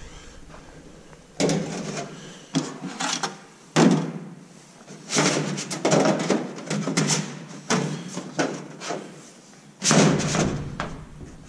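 Thin aluminium sheet knocking and rattling against an aluminium fuselage skin as a tail fairing is handled and set into place, a string of sharp knocks with short metallic ringing.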